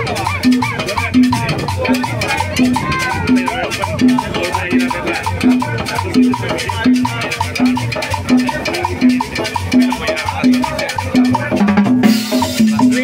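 Live salsa band playing, with congas, timbales and drum kit keeping the rhythm under a repeating low note of about one and a half a second.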